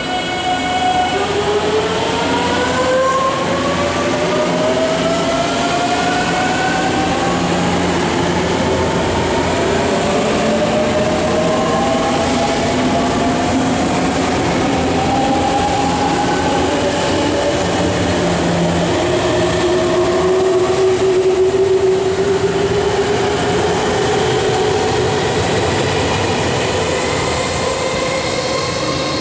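JR 383 series limited express electric train pulling away from the platform and accelerating past. A steady high whine from its inverter-driven traction motors gives way about a second in to several whines that climb in pitch, one after another, over the rumble of the passing cars.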